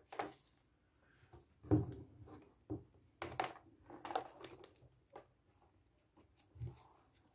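Scattered small clicks, taps and rustles of hands handling a 3D-printed plastic printer carriage and its toothed belt and pulley, fitting the parts together.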